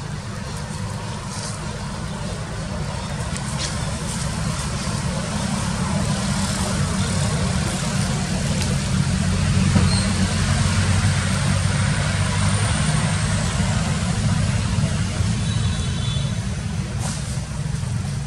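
Low, steady rumble of a motor vehicle's engine running, slowly growing louder toward the middle, with a few faint clicks over it.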